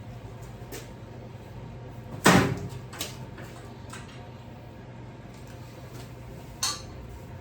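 Sharp knocks in the workshop: a loud one about two seconds in, a smaller one just after, and a brighter one near the end, over a steady low hum.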